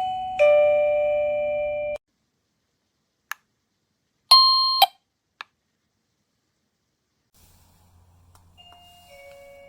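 Plug-in wireless doorbell receiver playing an electronic chime. The tune cuts off abruptly about two seconds in, then comes a click, a short bright beep, another click, and near the end a quieter two-note chime begins.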